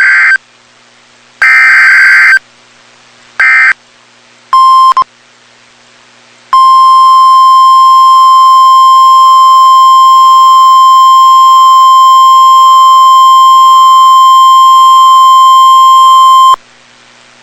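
Emergency Alert System alert: three short rasping digital header bursts of about a second each, the third cut short. Then a brief beep, and from about six seconds in a steady, single-pitched 1050 Hz weather-radio alert tone held for about ten seconds, announcing a severe thunderstorm warning.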